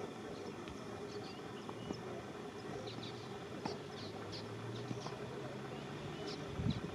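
Outdoor ambience: faint chirps of small birds, mostly around the middle, over a low steady hum, with a few low bumps near the end.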